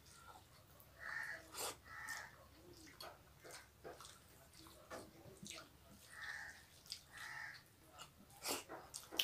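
Faint wet mouth sounds of eating rice and curry by hand: irregular lip smacks and chewing clicks, with a few soft squelches.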